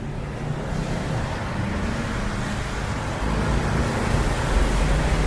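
Strong wind buffeting the microphone over rain and the steady hiss of rush-hour road traffic, the low rumble growing louder near the end.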